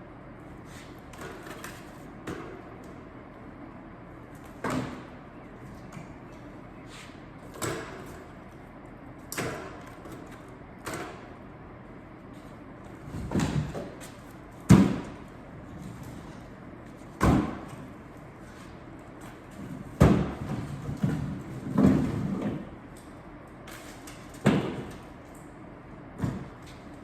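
Pieces of split firewood knocking and thudding as they are tossed and stacked into a firewood bundler: about a dozen irregular wooden impacts, some in quick runs, over a steady background hum.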